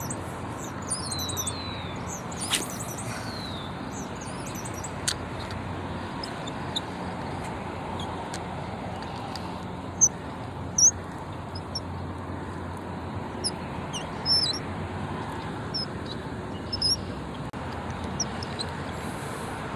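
Small birds chirping with short, high calls scattered throughout, over a steady background hiss. A couple of sharp clicks come in the first few seconds.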